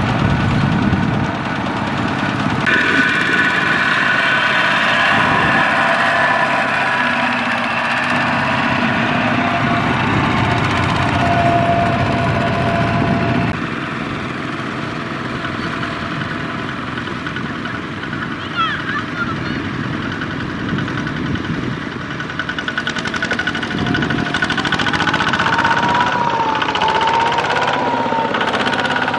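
Single-cylinder diesel engine of a two-wheel walking tractor chugging steadily while it pulls a trailer loaded with rice sacks. The sound changes abruptly about halfway through, then carries on.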